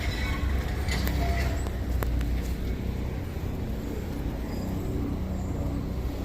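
Street traffic: a steady low rumble of vehicle engines, with a couple of faint clicks about one and two seconds in.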